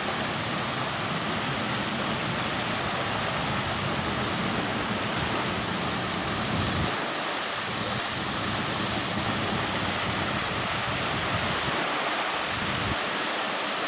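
Wind buffeting the camcorder microphone by the sea, a steady rushing noise with a gusty low rumble that drops out briefly about seven seconds in and again near the end.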